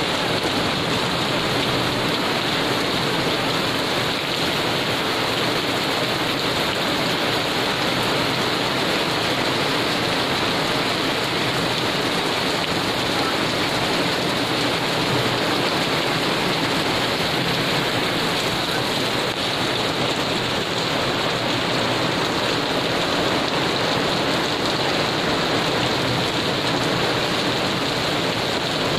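Heavy rain pouring down onto wet paving and hedges in a storm, a steady hiss that does not let up.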